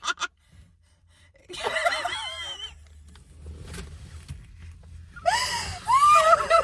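A person's wheezy, high-pitched gasping vocal sounds in two bouts, one about a second and a half in and a louder one near the end, with the pitch sliding up and down.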